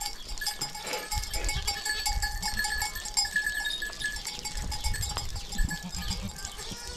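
A herd of goats bleating and shuffling about on bare ground, with scattered knocks and scuffs. A thin steady tone runs in the background for the first four seconds.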